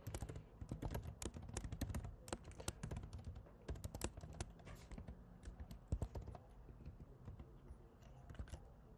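Typing on a computer keyboard: a quick run of key clicks that thins out after about five seconds, with one louder keystroke about six seconds in.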